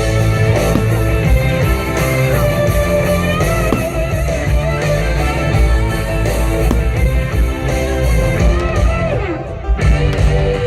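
Loud guitar-led rock-style music with a steady bass and no singing, dipping briefly near the end.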